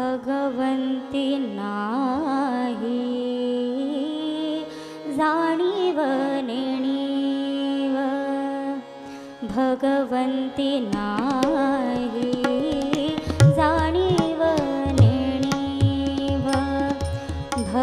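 A woman singing a Marathi abhang with ornamented, gliding phrases over harmonium and a steady sustained drone note. Tabla strokes come in about eleven seconds in and keep a beat with deep bass thumps.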